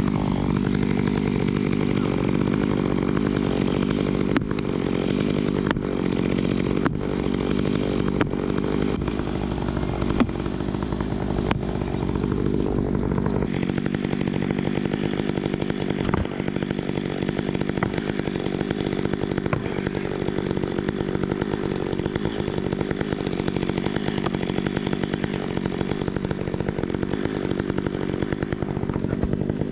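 Gas chainsaw running steadily at work. A deeper engine rumble underneath drops away about halfway through.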